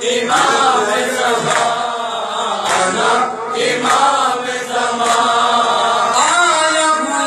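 A man chanting a nauha, the Shia mourning lament, in a sustained melodic voice through a PA microphone, with other men's voices joining in chorus. Sharp slaps recur about once a second, the chest-beating (matam) that keeps time with the lament.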